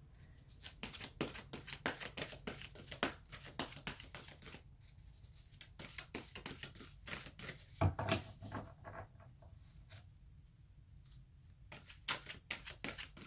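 A tarot deck (The Good Tarot) being shuffled overhand, cards slid off in small packets from one hand to the other in a run of quick, soft flicks and rustles. One louder knock comes about eight seconds in, and there is a brief lull before the flicking picks up again near the end.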